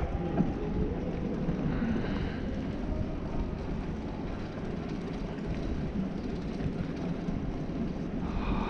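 Steady low rumbling noise of wind and road while riding a cargo bicycle, without any separate event standing out.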